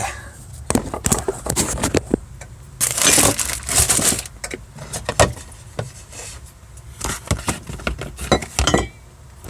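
Irregular clinks, knocks and rustling from hands handling parts and tools while working on a boat's galley-sink plumbing, with a longer hissy rustle about three seconds in.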